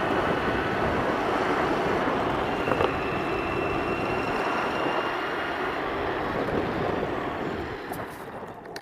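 Wind rush and rolling road noise of a homemade board travelling at about 35 mph on asphalt: a steady loud hiss, with a faint high whine through the middle. It dies down near the end.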